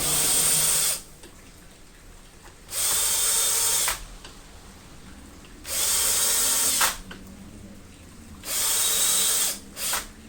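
Cordless power screwdriver running in four bursts of about a second each, with a short blip near the end, driving in screws to tighten a part of a brushcutter's clutch assembly.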